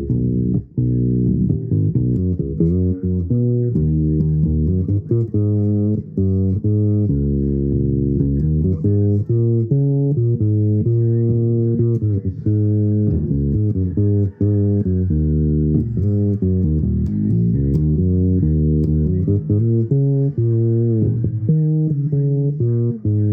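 Bass guitar played solo, noodling through a loose improvised line of plucked notes that follow one another with hardly a break.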